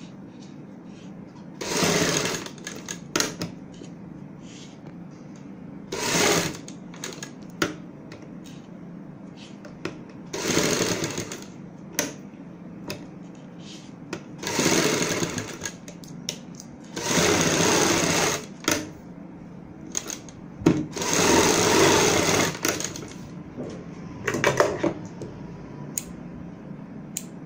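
Sewing machine stitching in about seven short runs of one to two seconds each, stopping in between, with small clicks as the fabric is repositioned. It is sewing a fabric strip onto a kurti's neck opening.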